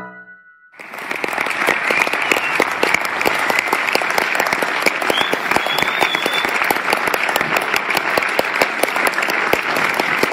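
A theatre audience applauding steadily, starting about a second in as the last piano notes fade out.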